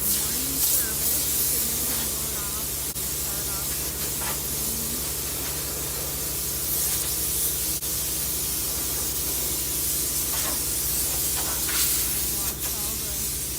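Farm harvest machinery running: a steady low engine drone under a loud, even hiss, with faint voices now and then.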